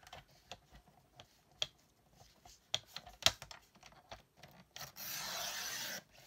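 A map page being handled and positioned on a sliding paper trimmer, with scattered light taps and paper rustles. Near the end the trimmer's blade is slid along the rail for about a second, cutting the page with a steady rasping sound.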